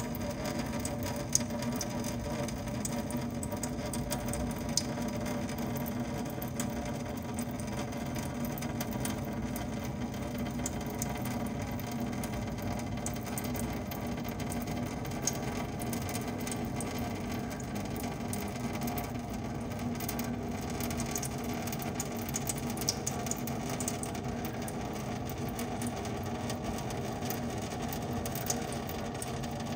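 Water trickling steadily from thin drain tubes into a stainless-steel sink, over a steady low hum, with a few sharp ticks.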